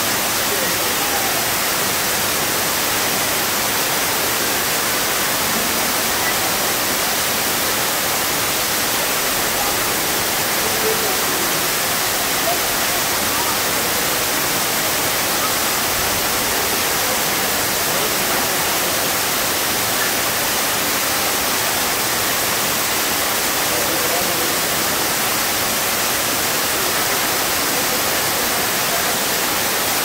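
Waterfall: thin streams of water falling down a rock face and splashing below, a steady, even rush.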